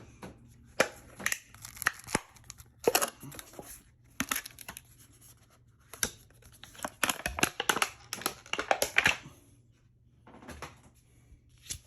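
Thin plastic cover being pulled and crinkled off a new toilet wax ring, irregular crackling and rustling that thins out near the end.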